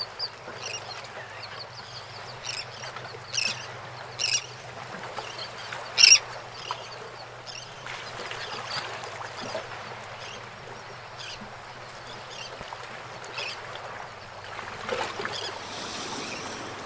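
Gulls calling in short, separate squawks at irregular intervals, the loudest about six seconds in, over a faint steady low hum.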